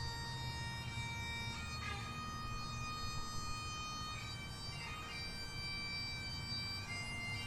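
Bagpipes playing a slow tune: long held melody notes that change pitch every second or two over a steady drone.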